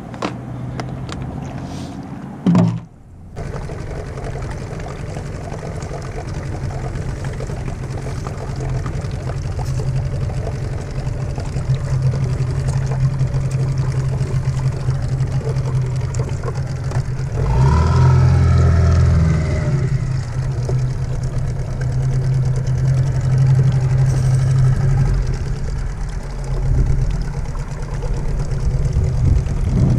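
Outboard motor of a small open boat running steadily under way, its engine note swelling for a couple of seconds about halfway through. A few short plastic clicks from a tackle box come before it at the very start.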